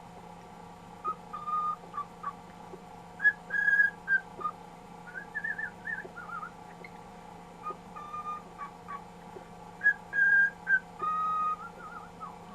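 Cockatiel whistling a string of short, clear notes, some held steady and some warbling up and down, with brief pauses between phrases.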